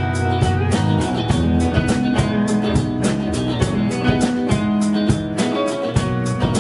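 A live band playing with no vocals: electric guitars and keyboard over a drum kit keeping a steady beat.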